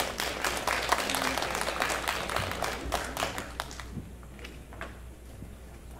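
Audience applauding: dense clapping that thins out about four seconds in, leaving a few last claps.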